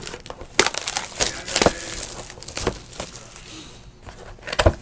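Crinkling and rustling of a trading-card pack's wrapper and the cards inside being handled, a string of sharp irregular crackles and clicks, with a louder knock near the end.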